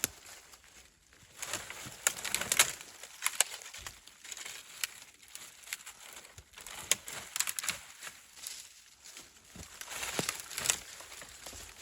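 Irregular crunching and sharp snapping of dry twigs, branches and forest-floor debris, coming in uneven bursts of crackle with separate cracks between them.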